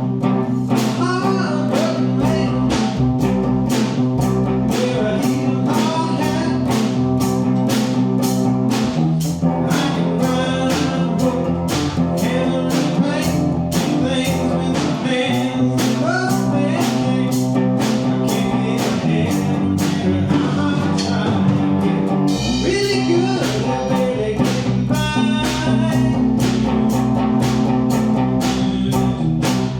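Band playing an up-tempo country-rock song, with electric guitar, bass and a steady drum beat.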